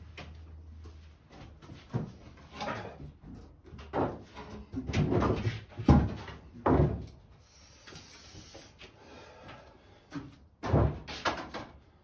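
Irregular knocks, thumps and clatter of stored things being shifted by hand to clear space, with the loudest bangs about six seconds in and again near the end.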